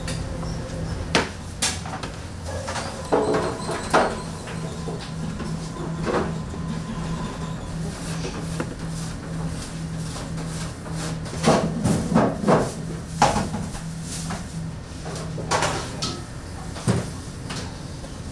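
Bakery kitchen work: scattered knocks and clatter, busiest about two-thirds of the way in, over a steady low machine hum that stops near the end.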